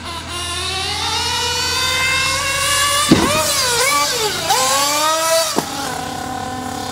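Kyosho Inferno RC buggy's small two-stroke engine revving hard, its note climbing steadily for about three seconds. The revs then swing up and down while the car is airborne, and drop abruptly to a lower steady note near the end.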